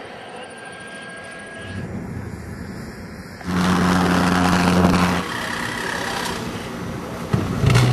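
Jet engines running in a string of short clips. The loudest stretch, with a steady low drone, runs from about three and a half to five seconds in, and there is a short loud burst near the end.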